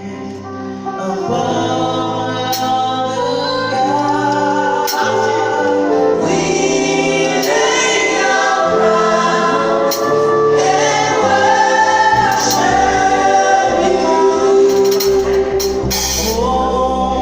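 Gospel music: a choir singing over held chords, with a sharp hit about every two and a half seconds on a slow beat.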